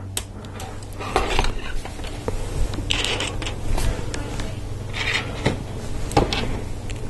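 Hard plastic LEGO Technic pieces clicking and rubbing as they are handled and pressed together, with several sharp clicks and a few short scraping rustles spread through.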